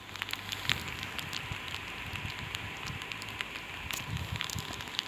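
Light rain falling, a soft steady hiss with many small irregular ticks of drops.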